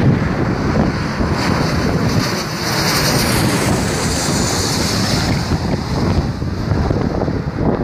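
Twin-engine jet airliner passing low overhead on landing approach, its engine noise swelling to a peak about two to five seconds in and then easing. Strong gusty wind buffets the microphone throughout.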